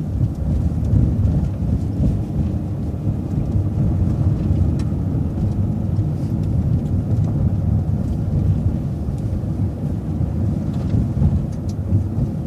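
Steady low rumble of a city bus's engine and tyres heard from inside the cabin, with a few faint ticks.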